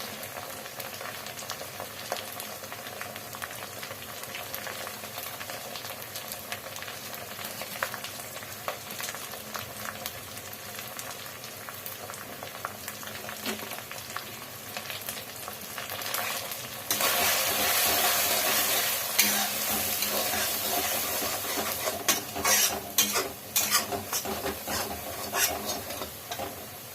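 Food sizzling as it fries in a pan while a spatula stirs it. The sizzle grows louder about two-thirds of the way through, and a run of sharp scrapes and knocks of the spatula against the pan comes near the end.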